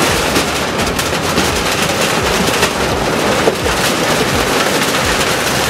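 Wheel loader smashing through a wooden kiosk with a corrugated sheet-metal roof: a loud, continuous crashing and clattering of buckling metal sheets and splintering wood, with a couple of sharper bangs in the middle.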